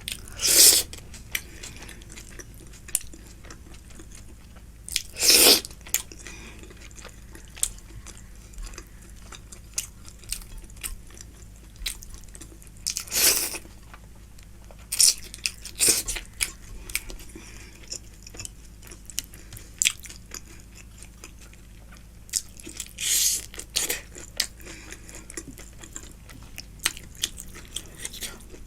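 Close-miked eating sounds: steady chewing of a rice-and-curry meal, broken by a handful of loud, sharp bites or crunches, the biggest about half a second in, near five seconds, near thirteen seconds and near twenty-three seconds.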